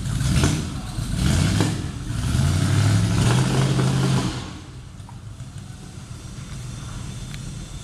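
Maserati 450S replica's engine revved three times, the third rev held for about two seconds, then dropping back to idle. It is running rough with misfires.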